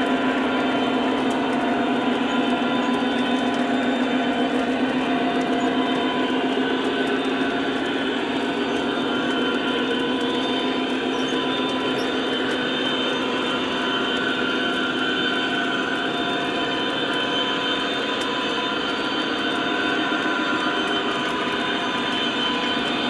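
O scale model freight train rolling past, a steady, even running sound of its metal wheels on the track.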